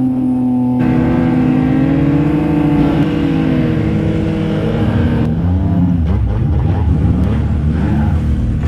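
Snowmobile engine running under way through deep powder, its note holding steady and then rising slightly. About five seconds in the pitch drops and wavers as the sled slows down.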